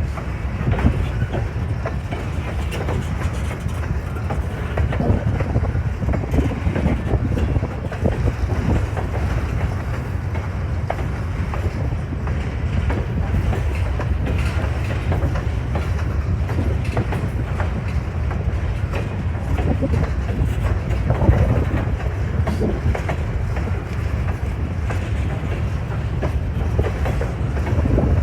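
Freight train's grain cars rolling past with a steady low rumble and many irregular wheel clicks over the rails.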